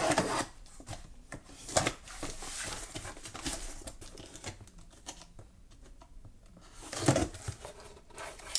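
Gerber pocket knife slicing through packing tape on a cardboard box, scraping along the cardboard, with the box's cardboard rustling as it is handled; a louder rustle comes about seven seconds in as the flaps are pulled open.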